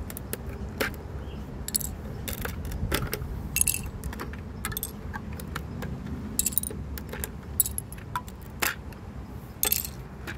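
Plastic Lego bricks and plates clicking and clattering as they are pulled off the model and handled: sharp, irregular clicks about once a second, some in quick pairs.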